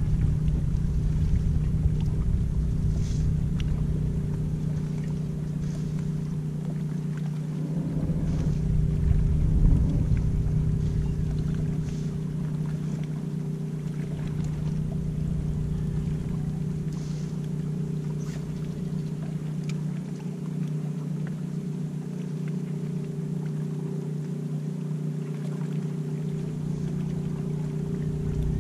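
A boat engine running with a steady drone, mixed with low wind rumble on the microphone that swells and fades. A few faint ticks come now and then.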